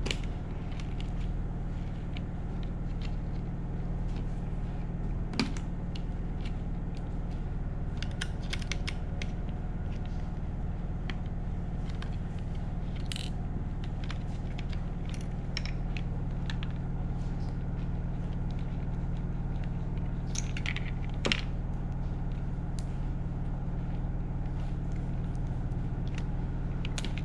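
Scattered small clicks and taps of hands working the plastic parts and wire connectors of a gel blaster as its cables are pulled and its circuit board is freed, over a steady low hum. Two sharper clicks stand out, about five seconds in and again past twenty seconds.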